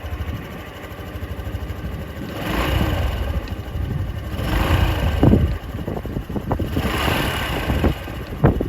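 Honda Cross Cub's 110cc single-cylinder engine running, swelling louder three times, about two and a half, four and a half and seven seconds in, as it is revved.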